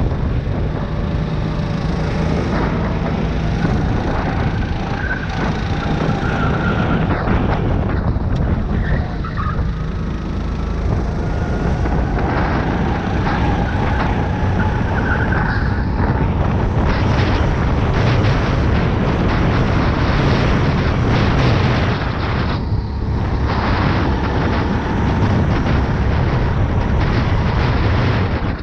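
Go-kart engine heard from on board at racing speed, its note rising and falling as it accelerates and eases off for corners, dipping briefly twice, over a heavy rush of wind noise on the microphone.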